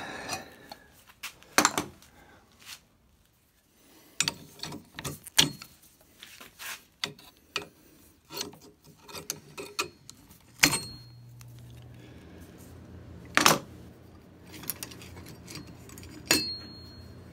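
Scattered sharp metallic clicks and knocks as pliers grip and work a partly cut piece of steel on an old ax head, trying to break it loose. A low steady hum starts about two-thirds of the way through.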